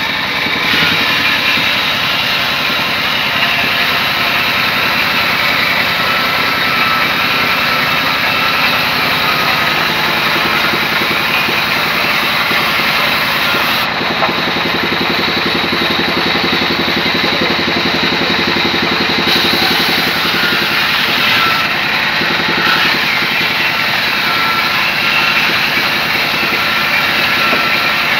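Large sawmill band saw running steadily while a slab of rain tree wood is fed through the blade and ripped lengthwise. There is a thin, steady whine over the cutting noise.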